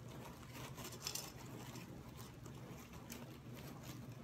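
Faint rustling and light irregular clicks of artificial flower stems and leaves as they are handled and rearranged in a vase, with a slightly louder cluster about a second in.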